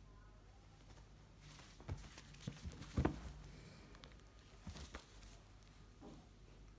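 Scattered soft thumps and rustling of clothing from a baby monkey clambering about on a person's lap while the camera is jostled. The loudest thump comes about three seconds in.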